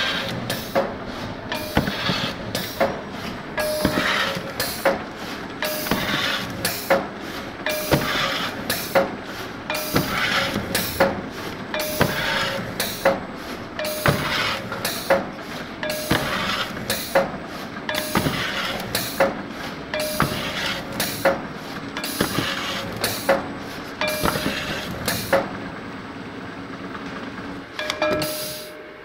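Cardboard core cutting machine running its automatic cycle: a rhythm of clicks and knocks with a rushing cutting noise that repeats about every two seconds. The rhythm thins out a few seconds before the end, with a last burst near the end.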